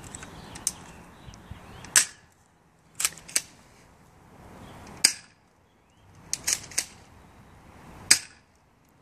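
Airsoft pump shotgun being worked and fired: sharp snapping clicks, the loudest about every three seconds, with smaller clicks in between.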